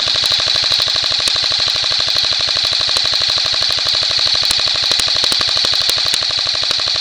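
Airsoft rifle firing a long, unbroken full-auto burst: a rapid, even stream of shots over a steady high gearbox whine.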